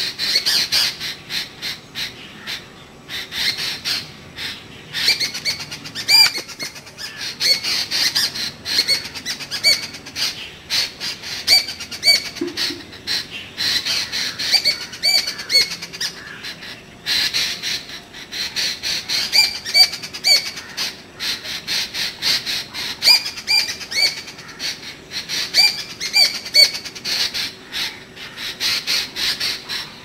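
Puff-throated babbler calling: short, high whistled phrases repeated again and again with brief pauses, over a busy clicking background.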